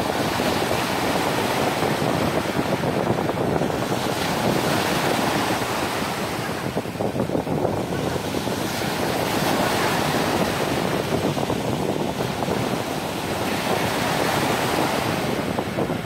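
Sea of Azov surf breaking on a sandy shore, waves washing in one after another, so the rush of water swells and eases every few seconds.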